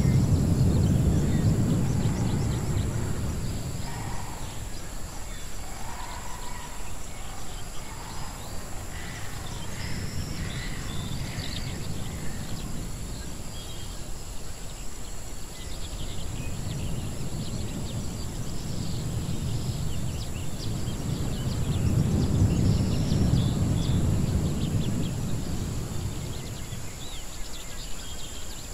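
Edited jungle-ruins ambience. A low rumble swells and fades, loudest near the start and again about three-quarters of the way through. Scattered bird chirps, clustered in the first third, and a steady high hiss sit over it.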